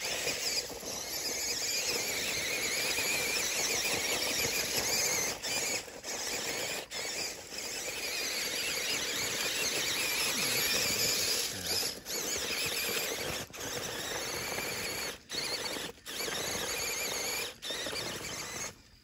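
Electric motors and plastic gear train of a Sembo 8880 brick-built RC off-road truck whining steadily as it drives and crawls over rocks, cutting out briefly several times in the second half as the throttle is let off.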